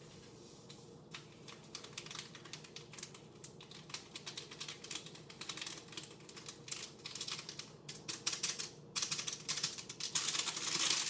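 Foil yeast packet crinkling and being tapped and shaken as dry yeast is emptied into a Mr. Beer plastic keg fermenter: a quick, uneven run of small rustling clicks that starts about a second in and gets busier and louder toward the end.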